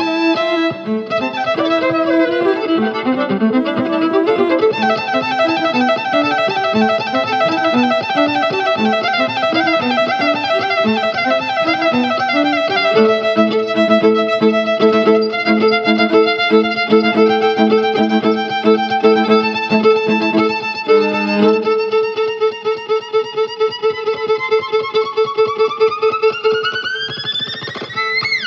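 Violin music over a backing track, with quick runs of bowed notes and repeated rhythmic figures, ending in a long rising slide in pitch over the last few seconds.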